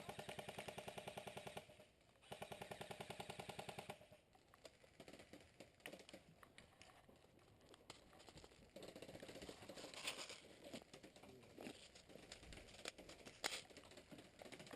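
Airsoft gun firing two rapid full-auto bursts of about a second and a half each, one right after the other, in the first four seconds. Softer clicks and handling noise follow.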